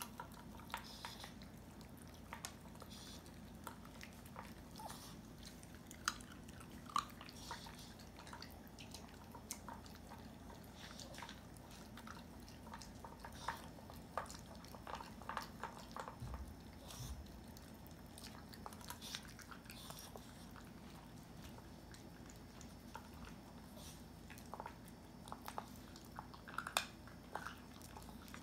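Small dogs eating kibble from stainless steel bowls: irregular crunching and chewing with scattered sharp clicks.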